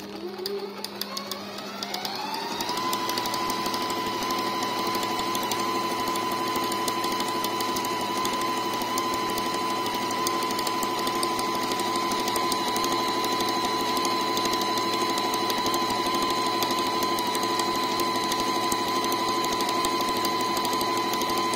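Brother Tendy Special computerised sewing machine running up to speed over the first few seconds with a rising whine. It then stitches a decorative zigzag at a steady high speed: an even motor whine with a rapid, regular needle clatter.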